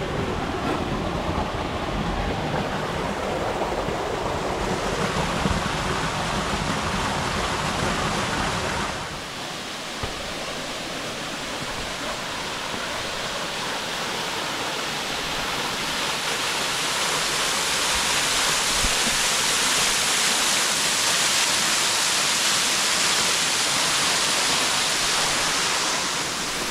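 Steady rush of falling and flowing water from a river and waterfall. About nine seconds in it shifts to a brighter hiss that grows louder toward the end.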